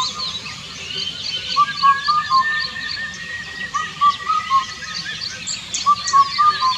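Indian cuckoo singing its four-note 'bắt cô trói cột' phrase three times, about two seconds apart. Higher-pitched chirps from other small birds run behind it.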